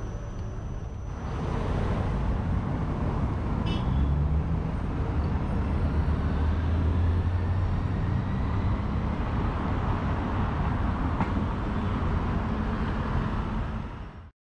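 Night-time city traffic circling a busy roundabout: cars running past with engine hum and tyre noise, louder from about a second in, with a brief high beep about four seconds in. It fades out near the end.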